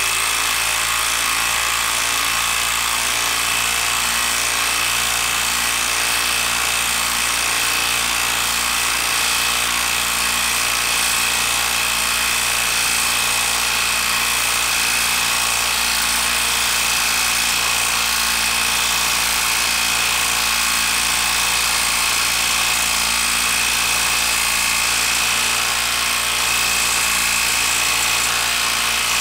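Hilti 12-volt quarter-inch hex impact driver hammering steadily without a break, driving a lag screw through an impact socket into solid end-grain wood with no pilot hole, so the tool impacts under heavy load for the whole run.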